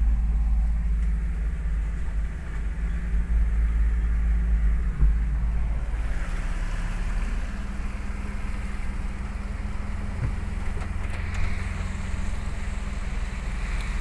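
A vehicle's engine and low road rumble heard from inside the cabin while it drives through deep floodwater, with water rushing and splashing around it. The rushing grows louder about halfway through.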